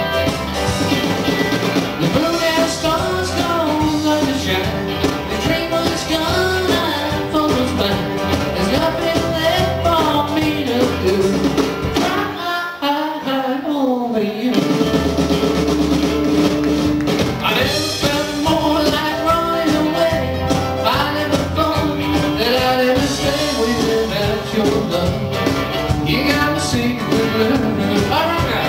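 Live rock and roll band playing: a male singer over electric guitars, bass and drums. About twelve seconds in, the bass and drums drop out for about two seconds under a falling lead line, then the full band comes back in.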